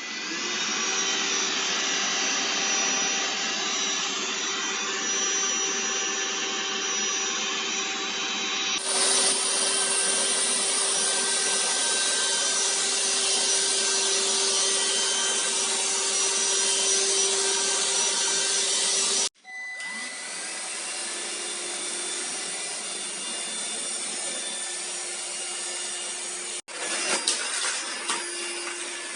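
Deerma VC20 cordless stick vacuum running: a steady rush of air over a constant motor whine. About nine seconds in the sound turns abruptly louder and brighter, and it drops out for a moment twice later on before the running resumes at a slightly different pitch.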